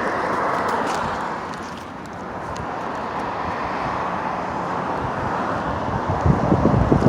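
Steady traffic noise that swells and fades, with low, gusty rumbling from about six seconds in.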